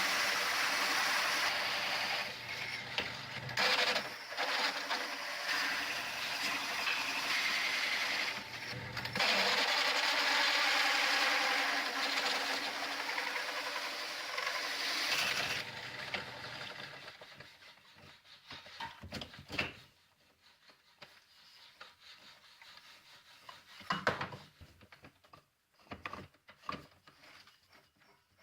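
Power drill running a circle cutter through plywood, a steady loud cutting noise that stops about fifteen seconds in. Scattered knocks of wood being handled follow.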